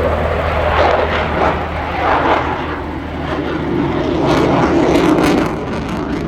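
Display aircraft flying past, a loud rushing engine roar that swells and eases, loudest about five seconds in.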